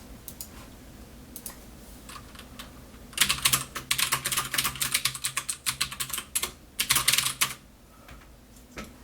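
Dense, rapid light clicking and rattling of metal tools working on a lock, in two bursts: one from about three seconds in to just past six seconds, and a shorter one around seven seconds.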